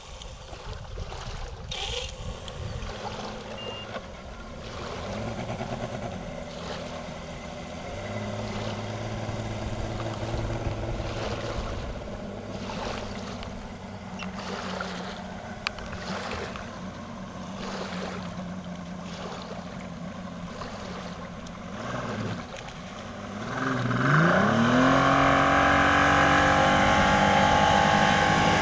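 Bass boat's outboard motor running at low speed, then opened up about three-quarters of the way through: its pitch climbs quickly and holds high and loud as the boat runs past at speed.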